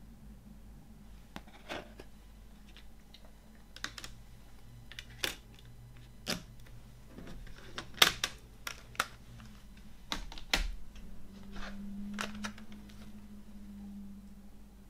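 Irregular clicks and taps of a CD and its plastic jewel case being handled and set down on a wooden table, the sharpest click about eight seconds in.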